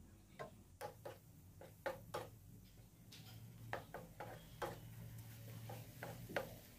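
Wooden spatula stirring a thick tomato-and-spice mixture in a granite-coated nonstick frying pan: irregular soft clicks and scrapes of the spatula against the pan, over a low steady hum.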